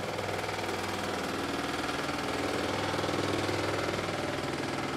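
An engine running steadily at an even speed, its firing pulses making a fast, even rhythm.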